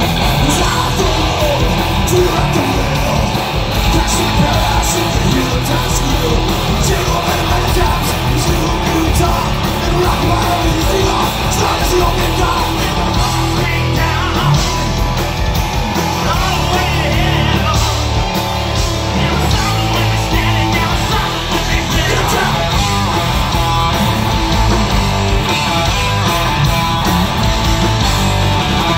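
Live heavy rock band playing loudly, with distorted electric guitars and some vocals over the top.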